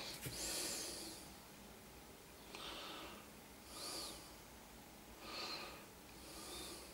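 A man breathing in and out through his nose, faintly: about five breaths, some with a slight whistle, and a small click just after the start.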